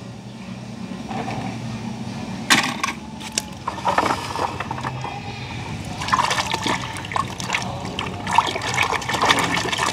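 Water sloshing and splashing in a basin as a hand swishes a small toy car through it, in irregular splashes that start about two and a half seconds in.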